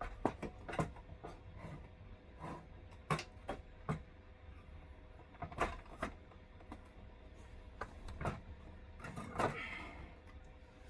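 Irregular clicks, taps and light knocks of hand work on metal and plastic parts, with a longer scrape near the end, over a steady low hum.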